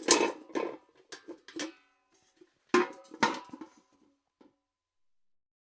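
Metal bucket clanking and rattling as it is knocked and handled: a burst of several knocks at the start and another about three seconds in, each with a short metallic ring.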